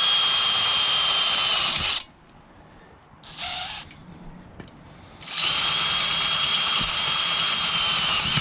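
Power drill boring a hole through the pipe of a sand scoop, its motor giving a steady whine. It stops about two seconds in, a short sound follows about a second later, and the drill runs again for the last three seconds.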